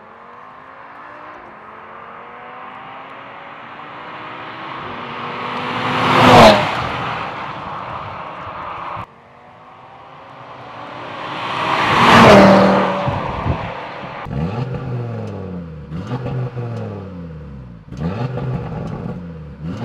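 2018 Audi RS3's turbocharged 2.5-litre five-cylinder engine on its stock exhaust, in two fly-bys: the car accelerates toward the listener and passes loudly about six and twelve seconds in. From about fourteen seconds the engine is blipped in a series of quick revs, its pitch rising and falling each time.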